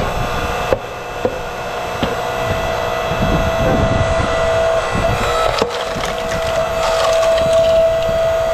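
Tiya 8-ton 2,300 W electric hydraulic log splitter running with a steady motor-and-pump hum while the ram drives a log onto the wedge. The wood gives a few sharp cracks as it splits, several in the first two seconds and another about five and a half seconds in.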